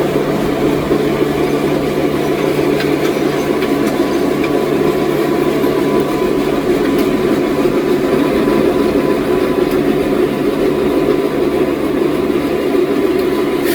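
Old sawmill machinery running steadily, a loud, unchanging engine-like drone with a constant hum.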